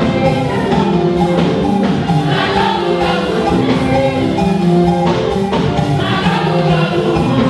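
A choir singing a gospel song in harmony over a steady beat.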